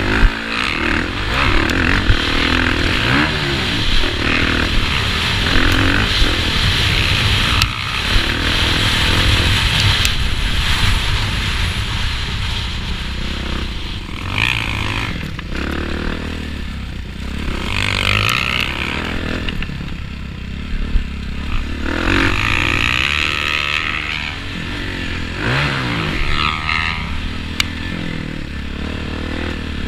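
Motocross bike engine revving hard and easing off again and again as the rider races around the track, heard from a helmet camera with wind rush and the odd sharp knock.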